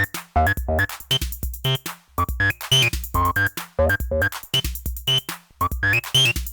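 Behringer TD-3 acid bass synthesizers (TB-303 clones) playing a sequenced pattern of short, fast pitched notes. A resonant filter peak moves up and down from note to note, over low bass thumps from a drum machine.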